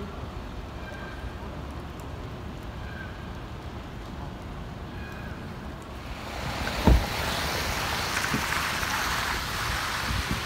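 City street ambience on wet streets: a low steady rumble with a few faint short chirps. About six seconds in, a louder steady hiss sets in, and a sharp low thump comes about a second later.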